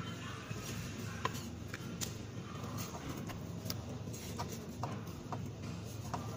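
A knife filleting a gourami on a wooden chopping block: scattered light ticks and scrapes of the blade, over a steady low background hum.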